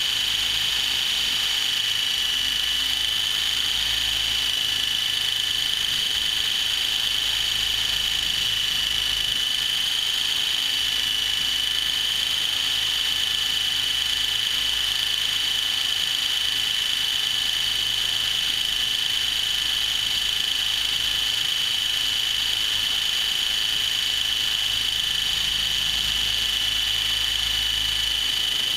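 Align T-Rex 700E electric RC helicopter heard from its own onboard camera: a steady high-pitched whine from the motor and drivetrain over the rush of the rotor blades. The whine's pitch wavers slightly as it flies low over the ground.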